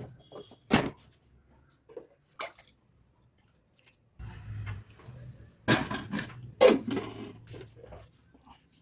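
Metal pots and utensils clinking and knocking a few times, sharp separate strikes with quiet gaps between. A low hum comes in about halfway through.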